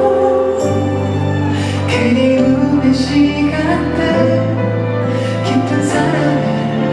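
A male singer singing a slow, tender Korean ballad live into a handheld microphone over instrumental accompaniment, with sustained bass notes that shift every second or two.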